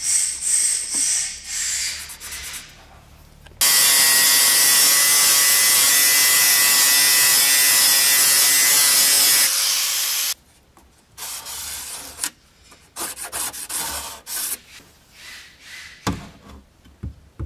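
Handheld angle grinder running against the painted sheet-steel floor of a car, cleaning it back to bare metal: a loud steady grind with a high whine that lasts about six seconds, then cuts off and winds down. Before it come short scratching and rubbing sounds, and after it light handling noises with a couple of knocks near the end.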